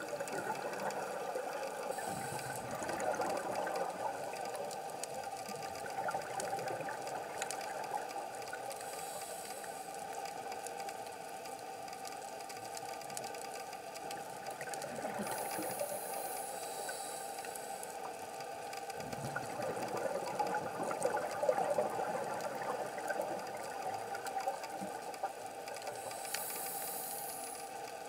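Underwater sound from a scuba dive: a steady watery rumble with a high hiss that comes back every six to seven seconds, typical of a diver breathing through a regulator.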